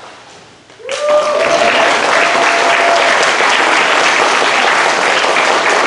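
Congregation applauding as the newly baptised woman comes up out of the water; the applause breaks out suddenly about a second in and stays steady, with one voice cheering over it at the start.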